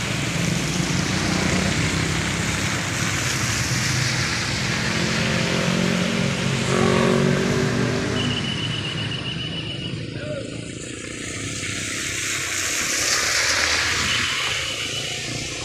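Motorcycles and cars passing through a rain-soaked intersection, engines running and tyres hissing on the wet asphalt over a steady hiss of rain. Two brief high-pitched trills come partway through and near the end.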